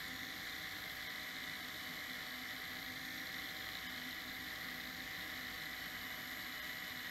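Cordless drill running at a steady speed with a small metal part spinning in its chuck, sanded by hand with sandpaper held against it: an even motor whine over a light sanding hiss.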